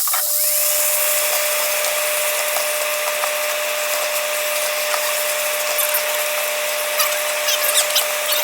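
Chicken and lemongrass paste sizzling in hot oil in a frying pan, under a steady electric hum, with a few scrapes of a utensil against the pan near the end.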